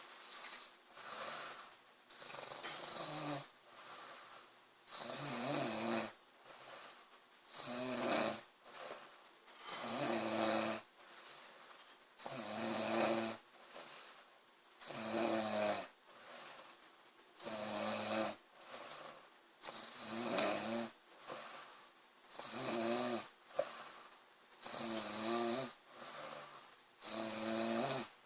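A girl snoring loudly in a regular rhythm, one snore about every two and a half seconds, the first few breaths softer.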